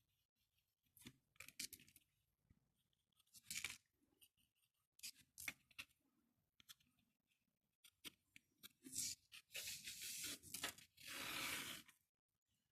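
Cardboard creaking and scraping under a working tool in short separate strokes, then a busier run near the end finishing with one longer scrape.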